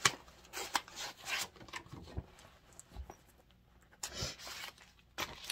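Soft, scattered rustles and a few light taps from cross-stitch pattern sheets and packaging being handled, with a near-silent stretch partway through.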